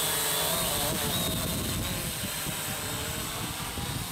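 Large quadcopter drone hovering close by, its motors and propellers whirring with a pitch that wavers up and down as the rotors change speed to hold position.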